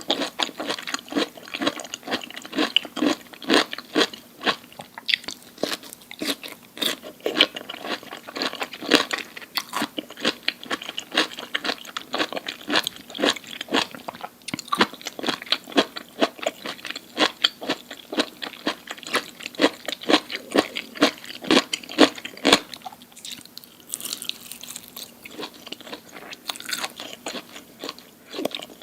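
Close-miked chewing of crunchy food: rapid crisp crunches, several a second, thinning out briefly about two-thirds of the way through.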